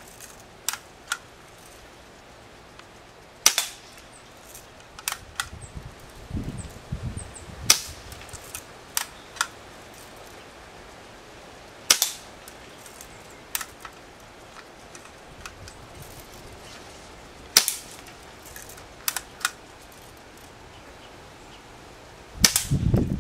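Daisy PowerLine 1200 CO2 BB pistol fired four times, sharp pops about four to five seconds apart, with lighter clicks in between.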